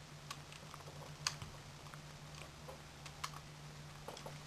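Lego Technic plastic parts clicking and clattering as they are handled and snapped together, with a few sharper clicks about a second in and past three seconds in, over a faint low steady hum.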